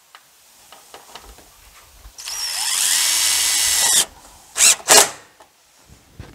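Cordless drill driving a roofing screw through a corrugated metal roof panel: the motor spins up with a rising whine about two seconds in, runs steadily for nearly two seconds and stops sharply. Two short loud bursts follow about a second later.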